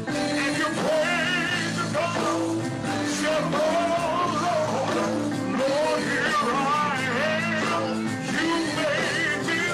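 Gospel singing: a lone voice holding notes with a wide, wavering vibrato over sustained chords from the accompanying instruments.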